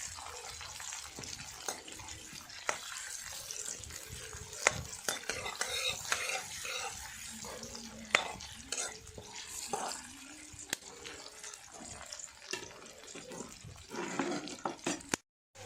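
Food frying and sizzling in a pan while a metal spoon stirs it, clinking and scraping against the pan many times.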